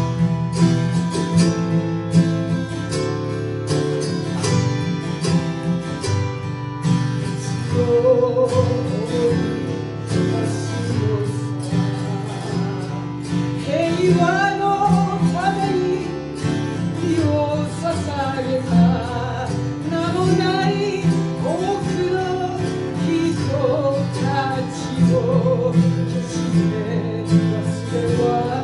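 Acoustic guitar and autoharp playing a plucked, strummed instrumental passage of a ballad. About halfway through, a wordless vocal melody that bends and wavers in pitch comes in over the chords.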